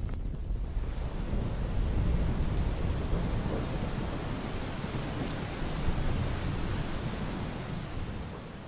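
A steady rushing noise with a deep low rumble and faint scattered ticks, fading out near the end.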